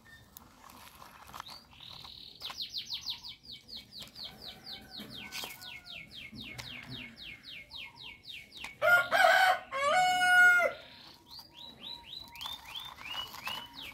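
A bird calling in a quick run of short falling chirps, about five or six a second. About nine seconds in a rooster crows, loud and in two parts, and then a shorter run of chirps follows.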